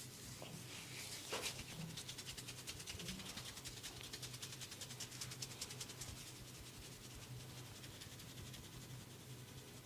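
Hands rubbing and scratching quickly over skin or hair during a massage, a fast run of soft scratchy strokes several times a second that eases off in the later seconds, over a low steady hum.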